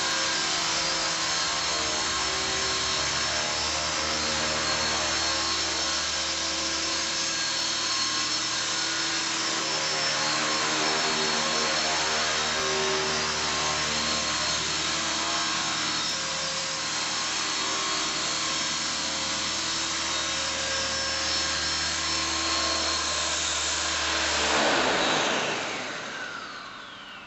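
Esky King electric radio-controlled helicopter hovering: a steady whine of motor, gears and main rotor with many tones at once. Near the end it sets down and the motor is cut, and the whine falls in pitch and fades as the rotor spools down.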